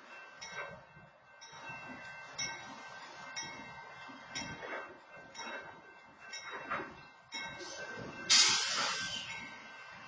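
Freight train of covered hopper cars rolling through a grade crossing, its wheels clanking over the rails in repeated uneven bursts with brief squeals. A loud hiss about eight seconds in is the loudest sound.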